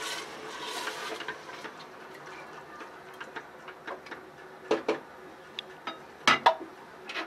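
Wooden spoon stirring a watery mutton and lentil curry in a pressure cooker: a soft swish of liquid in the first second, then scattered light knocks of the spoon against the pot, with a few louder knocks in the second half.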